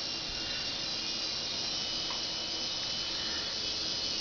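Mini remote-control helicopter's small electric motor and rotor whirring steadily in flight, a constant buzzing whine that grows a little louder near the end.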